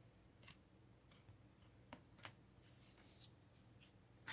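Faint, scattered clicks and light rustles of baseball trading cards being handled, flipped and laid down on a wooden desk, over a low steady room hum.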